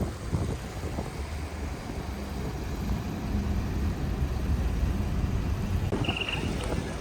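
Low, steady rumble of blizzard wind buffeting the microphone, mixed with passing street traffic. A brief high chirp sounds about six seconds in.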